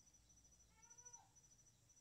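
Near silence with an insect's faint, steady, high pulsed chirping. About a second in comes one short animal call.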